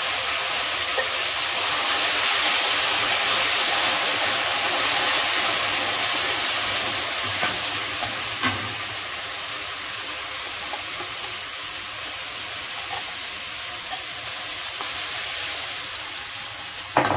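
Wet onion paste sizzling in hot ghee in a stainless-steel kadai with fried whole spices, a steady hiss that slowly dies down as the paste cools the fat. A couple of brief clicks sound over it, about halfway through and near the end.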